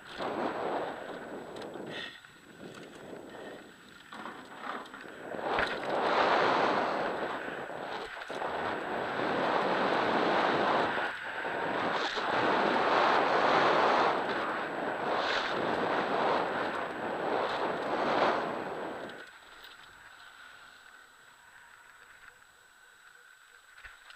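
Wind rushing over the camera microphone and a mountain bike's tyres rolling fast over a dirt trail, with occasional sharp clatters from bumps. The rush dies away about three-quarters of the way through as the bike comes to a stop.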